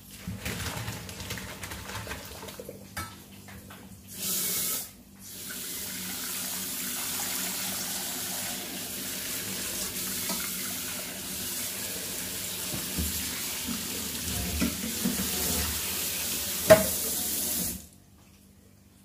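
Kitchen tap running into a sink: a short, stronger gush about four seconds in, then a steady stream for about twelve seconds with a few knocks in the sink, cut off abruptly about a second before the end.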